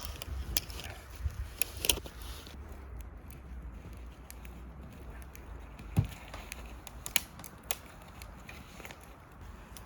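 Wood campfire burning, crackling with sharp irregular pops over a low rumble.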